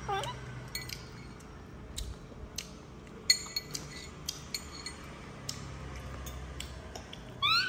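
Light, scattered clinks and taps of a spoon against dishes while feeding. The sharpest clink, about three seconds in, rings briefly. A short rising squeak comes near the end.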